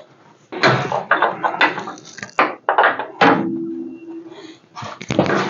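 A quick run of metal clanks and knocks from wrenches and suspension hardware being worked, with a short ringing tone a little past the middle.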